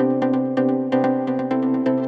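Electronic background music: steady synthesizer tones over a quick, even beat.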